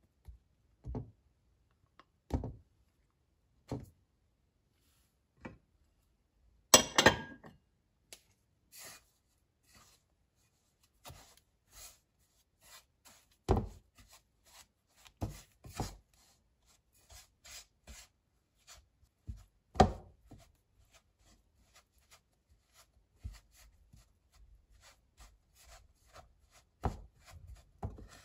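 A silicone spatula cutting butter into flour in a ceramic bowl: scattered scrapes and taps, with a few sharper knocks of the spatula against the bowl and a louder scrape about seven seconds in.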